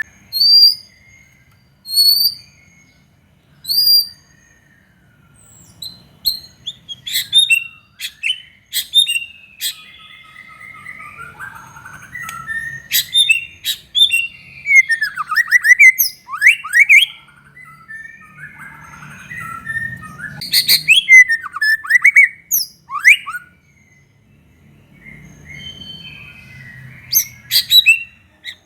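White-rumped shama singing: it opens with three short rising whistles about two seconds apart, then pours out a varied run of chirps, sweeping whistles and trills with brief pauses.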